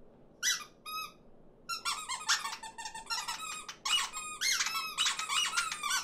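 High-pitched chirping chatter of animated cartoon birds: two short calls about half a second in, then a quick run of overlapping peeps and squawks that rise and fall in pitch.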